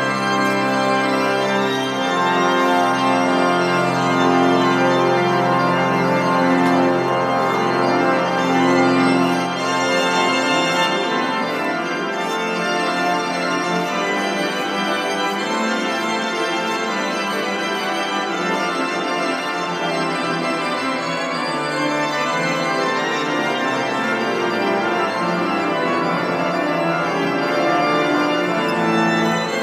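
Church pipe organ playing: full, sustained chords over long held bass notes, turning to a busier passage about ten seconds in.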